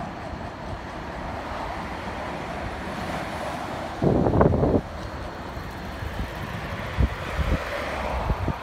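Wind rushing over the microphone of a phone carried on a moving bicycle, with road noise underneath. About four seconds in there is a louder rumble lasting under a second, and near the end a few short low knocks.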